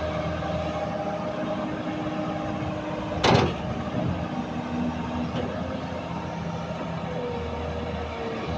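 Volvo EC360B LC excavator travelling on its steel tracks, its diesel engine and hydraulic pumps running steadily, on a travel test after its pump oil flow was adjusted. A sharp, loud clank stands out about three seconds in.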